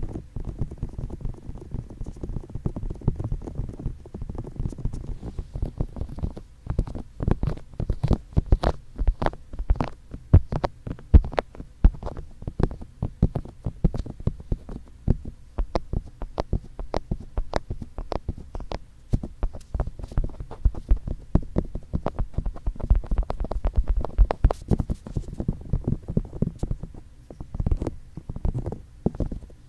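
Fingertips tapping and rubbing on ASMR microphone ears: many quick, muffled taps in uneven runs over a low rumble from hand contact with the microphone.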